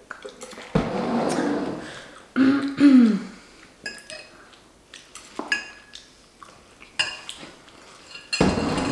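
A metal fork clinking and scraping against a ceramic bowl in a few separate sharp clicks, mixed with close-up eating noises. A noisy burst comes about a second in, a short sliding tone near three seconds, and a louder stretch of noise near the end.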